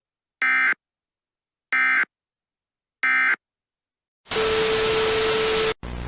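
Three short bursts of EAS digital data tones, the end-of-message signal, about a second and a half apart. They are followed by a burst of loud static with a steady tone in it, which cuts off abruptly into quieter static and hum.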